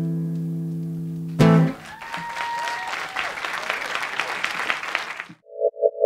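Acoustic guitar's final chord ringing out, then one last sharp strum about a second and a half in, damped short. Audience applause follows and cuts off abruptly near the end, where a short electronic jingle begins.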